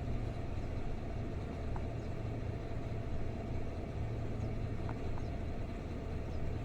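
Chevrolet Silverado pickup's engine idling, a steady low hum with no change in speed.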